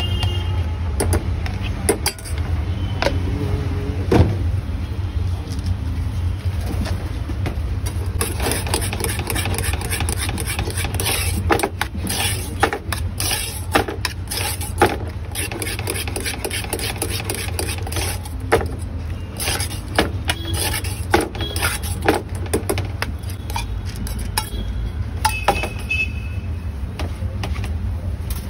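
Metal utensils clinking and scraping in quick, irregular strokes as paneer tikka is tossed and plated, over a steady low rumble of street traffic.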